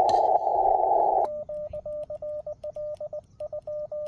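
Amateur radio transceiver hissing with receiver static. About a second in, the hiss cuts out and Morse code comes in as rapid beeps at one steady mid pitch, keyed on a brass Morse key, with a brief break near the end.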